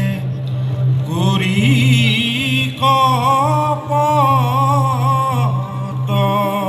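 Live Assamese folk singing: a voice holds long, wavering notes over a steady low drone.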